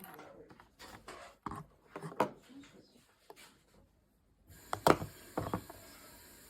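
Handling noises: scattered light clicks and rubbing, with a few sharper clicks about five seconds in.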